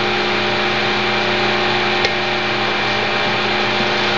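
Steady background hum and hiss, with one faint click about two seconds in.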